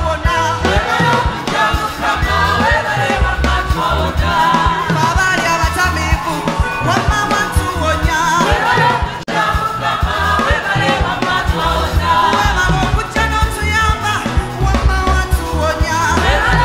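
Live gospel praise music: a woman singing lead into a microphone over keyboard and a steady pulsing bass beat, with a brief dropout about nine seconds in.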